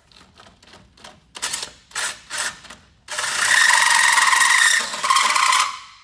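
Cordless drill driving a hole saw into the truck's steel frame: a few short trigger pulls, then a sustained run of about three seconds with a steady motor whine and the saw grinding through the metal, stopping briefly near the end before starting again.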